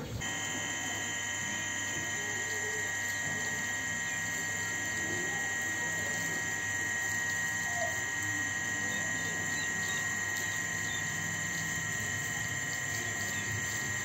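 Steady electrical hum with a high whine, many held tones that do not change.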